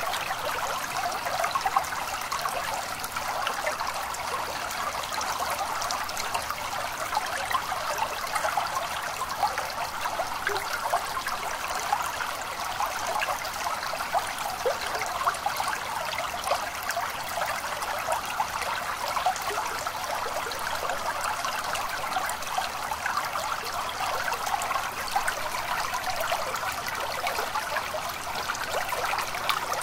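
Small stream trickling and babbling steadily.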